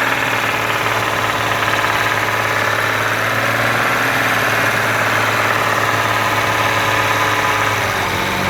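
BMW N54 twin-turbo inline-six engine running at steady revs; the owner traced a rod knock inside this engine, heard around 3,000 rpm. The engine sound cuts off abruptly at the end.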